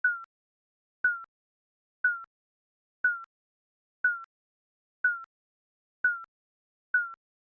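Digital countdown timer beep sounding once a second, each a short high beep that dips slightly in pitch, with a click at its start.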